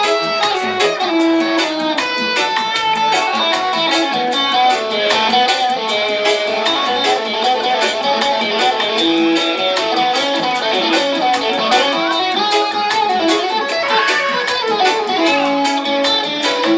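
Live reggae band playing an instrumental passage: a lead electric guitar plays a melodic solo line over a steady beat with evenly spaced cymbal ticks.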